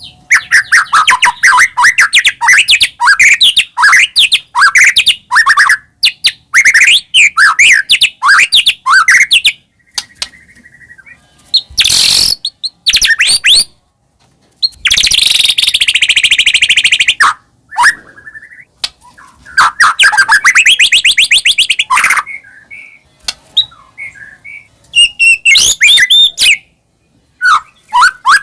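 White-rumped shama (murai batu) in full song: fast, varied phrases of whistled notes that rise and fall, broken by harsh rattling bursts about twelve seconds in and again from about fifteen to seventeen seconds in, with short pauses between bouts.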